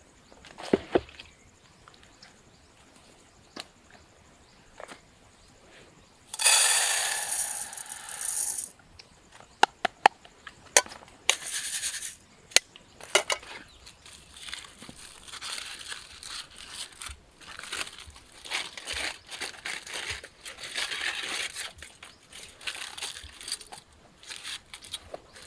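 Crinkling and rustling of something being handled, with scattered sharp clicks and knocks. A loud rushing hiss lasts about two seconds, starting some six seconds in.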